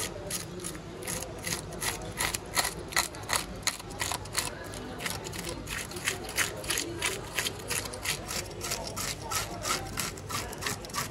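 A metal scaler scraping the scales off a large Caspian carp in quick, repeated strokes, about three a second, with the scales rasping as they come away.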